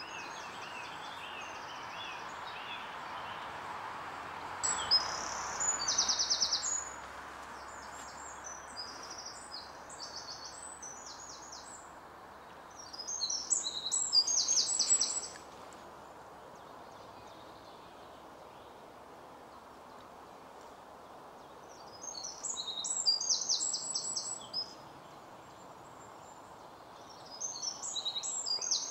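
A small songbird singing four short phrases of high, quick trills and chirps, each about two seconds long and several seconds apart, over a steady outdoor hiss.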